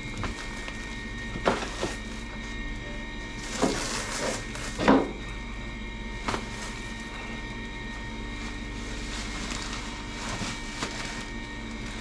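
Woven plastic sacks of fish and plastic fish crates being handled and set on a scale: a few scattered thumps and rustles, the loudest about five seconds in, over a steady hum.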